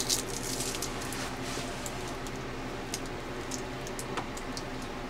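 A few faint, short clicks and taps of small parts handled in the fingers, over a steady electrical hum.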